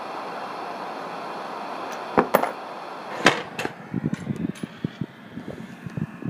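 Gas torch flame of a Giraud annealer hissing steadily while annealing .223 brass cases. Sharp metallic clinks about two and three seconds in, then a run of short, duller clinks of annealed brass cases dropping onto each other in a cardboard box.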